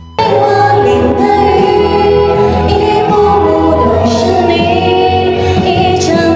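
Karaoke: women singing a Mandarin pop song into microphones over a loud backing track, starting suddenly just after the opening.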